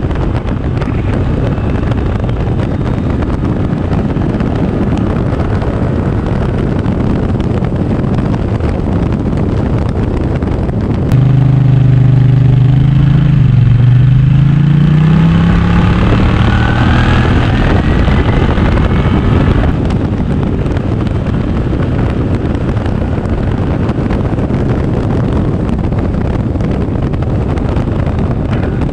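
Wind buffeting and road noise from a motorcycle at speed. For about eight seconds in the middle, a Kymco AK 550 maxi-scooter's engine note comes through loudly, dipping a little and then climbing in pitch as the bike accelerates, before it cuts off suddenly.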